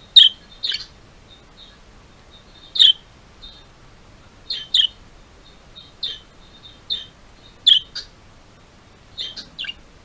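Budgerigars chirping: short, sharp, high chirps, singly and in quick pairs, about a dozen spread through, the loudest at the very start.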